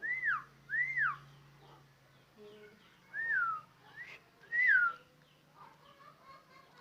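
Javan myna giving clear whistles: two quick notes that rise and fall, then after a pause three more, mostly falling in pitch.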